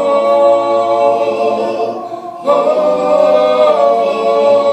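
A cappella vocal group singing a gospel song in close harmony: a long held chord, a short break about two seconds in, then a second held chord.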